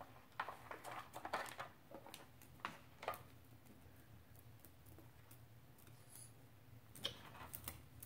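Scattered light clicks and taps of an African grey parrot handling hard plastic toys in a plastic tub: a cluster over the first three seconds, a pause, then a few more near the end.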